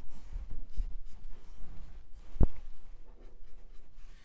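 Paintbrush stroking white paint along the edge of a laser-cut wooden piece: soft, repeated scratchy brushing, with a single sharp knock about two and a half seconds in.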